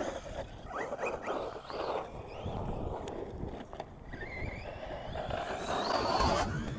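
Brushless electric motor of an Arrma Outcast 4S BLX RC truck whining as it is driven, its pitch rising and falling with the throttle, then climbing steadily for a couple of seconds near the end.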